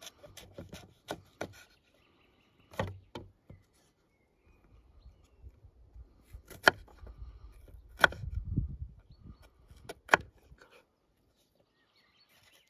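Knife cutting an onion on a wooden cutting board: irregular sharp taps and knocks of the blade meeting the board, with a few louder knocks in the second half.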